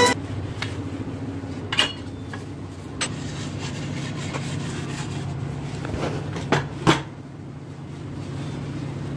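A few short clinks and knocks as a glass-top gas stove and the things on it are handled while it is scrubbed, over a steady low hum. The knocks fall about two and three seconds in, then twice more close together near seven seconds.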